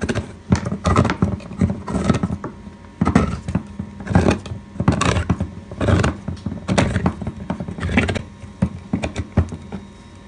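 Manual can opener being cranked around the lid of a metal can, cutting it open: a run of uneven clicking, grinding strokes as the key is turned, with a short pause partway through, stopping near the end.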